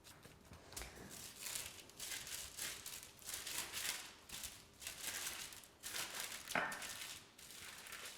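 Irregular crinkling and rustling of something being handled, in soft strokes about every half second to a second, with a sharper, louder one about six and a half seconds in.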